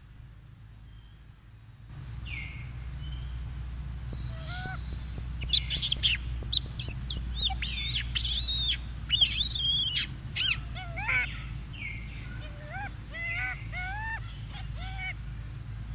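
Golden snub-nosed monkeys calling with many short, high-pitched chirps and squeaks that rise and fall in pitch, over a low steady rumble. The calls start about two seconds in and are thickest and loudest in the middle.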